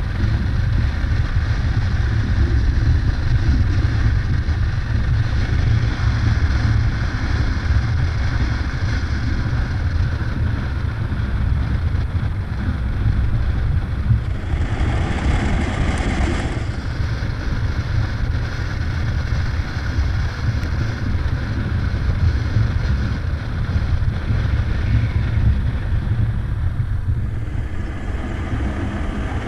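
Yamaha Ténéré adventure motorcycle being ridden at steady road speed: a continuous low engine drone under an even rush of wind on the microphone. About halfway through, a louder whoosh lasts a couple of seconds.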